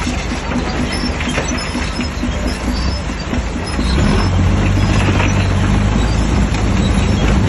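Shantui DH17C3 crawler bulldozer's diesel engine working under load, with a few clanks from the tracks or blade; the engine gets louder about four seconds in.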